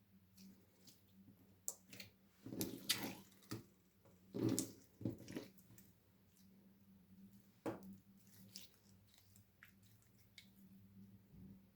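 Slime being squished: wet squelches and sticky pops, with two louder bursts of squelching about three and five seconds in and a sharp pop near eight seconds.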